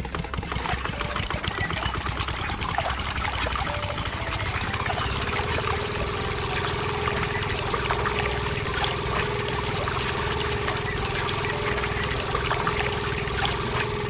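A small motor running under a dense, gritty rattle mixed with pouring sounds; a steady hum sets in about five seconds in.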